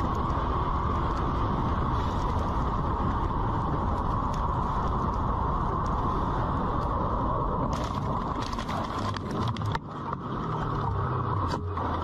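Steady wind and road rush picked up by a camera on a moving vehicle. A cluster of clicks and scrapes comes about eight seconds in, and a low steady hum starts near the end.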